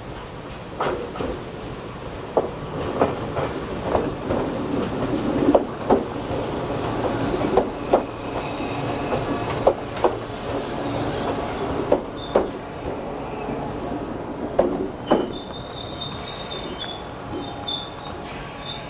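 Nagano Electric Railway 1000 series electric train rolling slowly past on its articulated bogies, its wheels knocking over the rail joints in pairs about every two seconds. About fifteen seconds in, a high squeal sets in as the train slows into the platform.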